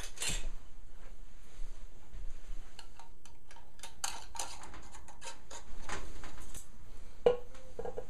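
Metal canning lid and screw band being fitted and twisted onto a glass quart jar of apple juice: a run of small scraping clicks and clinks, with one sharp metallic clink that rings briefly near the end.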